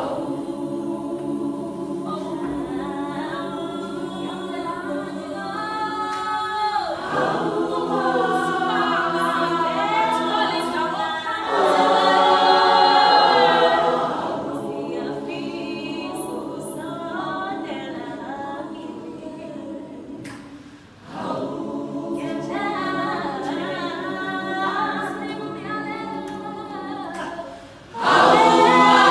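Large women's choir singing an unaccompanied hymn-like song in Zulu in full harmony. The phrases break off briefly a few times, swell louder near the middle, and come back in loudly at the very end.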